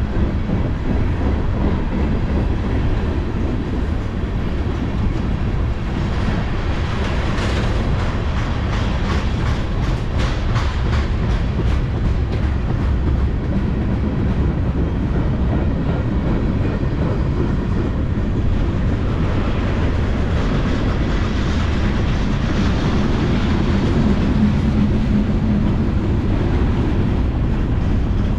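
Freight cars of a long mixed freight train rolling past close by: a steady rumble of wheels on rail, with a stretch of rhythmic clickety-clack from wheels crossing rail joints about a quarter to a third of the way in.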